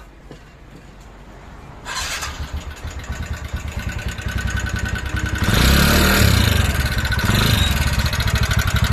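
TVS Ntorq 125 scooter's single-cylinder four-stroke engine started about two seconds in, then running with a fast even beat and getting louder a few seconds later. The mechanic points to this noise as the scooter's sound fault, which he sets out to cure with timing chain work.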